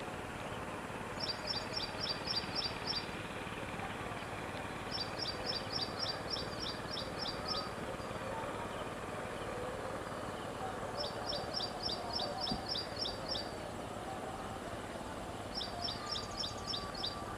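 A bird calling in four runs of quick, high chirping notes, about four notes a second and six to ten notes in each run, over a steady low background hiss.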